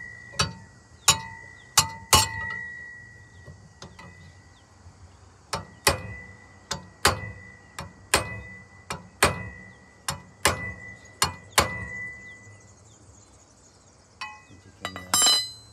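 A steel pry bar tapping the blade edge of an aluminium boat propeller held against a steel tow ball, bending the blade tip to add cup. About fifteen sharp metallic taps, each with a short ring, pause for a few seconds after the first four. A brief metallic clatter comes near the end.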